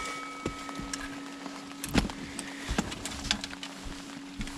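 Scattered light knocks and clicks of gear being handled in a fishing boat, the sharpest about two seconds in, over a steady low hum.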